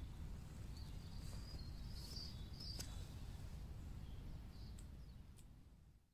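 Outdoor ambience: a low, steady rumble with a few faint high bird chirps about one to three seconds in, fading out near the end.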